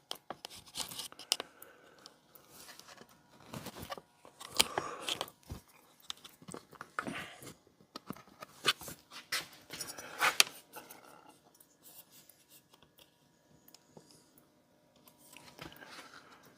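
Irregular clicks, crackles and short rubbing scrapes of hands working rubber lines and plastic parts in a tight spot of a Stihl MS210 chainsaw's handle, with the loudest clicks about four and a half and ten seconds in.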